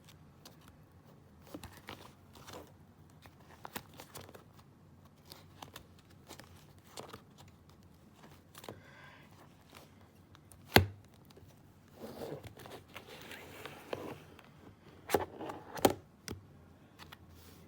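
Pages of a card binder being flipped: plastic card sleeves crinkling and pages rustling, with scattered small clicks, a sharp knock about eleven seconds in and a few more near the end.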